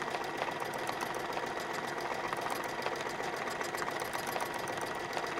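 Domestic sewing machine stitching steadily during free-motion quilting, the needle running at an even rapid rate over a steady motor whine.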